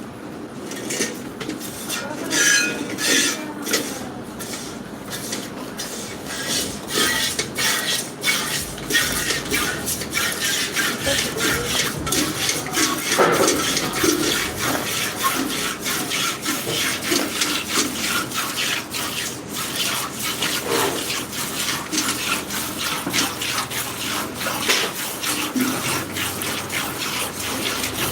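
Milk jets from a buffalo being milked, squirting into a pail in quick, rhythmic, hissing strokes.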